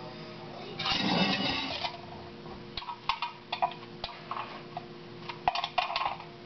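A spoon scraping and scooping seeds and stringy pulp out of a halved raw butternut squash: a run of short scrapes and clicks through the second half. About a second in there is a louder, denser noise lasting about a second, and a steady faint hum runs underneath.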